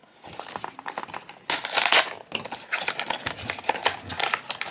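Small cardboard blind box being torn open by hand: a run of ripping and rustling that thickens about a second and a half in, with some crinkling from the packaged figure bag inside.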